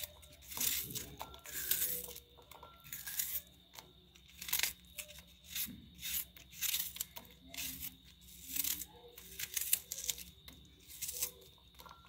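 Small knife slicing through a raw red onion held in the hand, a run of crisp cuts coming about one to two a second.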